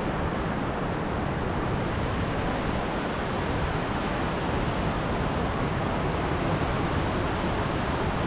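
Steady rush of water, an even, unbroken roar that holds level throughout.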